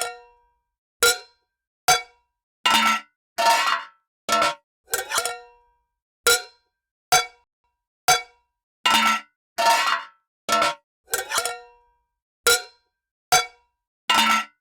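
Metal lids being opened: a string of about sixteen separate short metallic clangs, each ringing briefly before cutting to silence.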